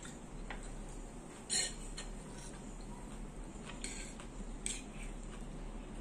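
Forks and plates clinking now and then on a dining table during a meal, the loudest clink about one and a half seconds in and two lighter ones later.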